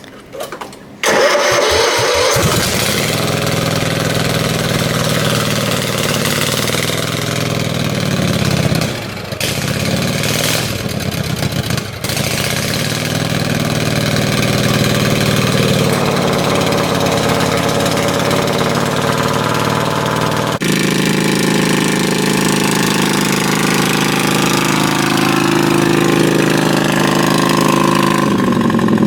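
Craftsman lawn tractor's twin-cylinder engine, straight-piped with the muffler removed, cold-started: a brief crank, then it catches about a second in and runs loud and open. Its note dips briefly twice near the middle, then it runs on steadily.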